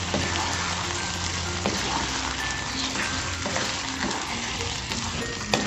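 Chicken pieces and sliced green chilies frying in a thick curry sauce in a nonstick pan, a steady hiss, while a spatula stirs them and taps the pan a few times.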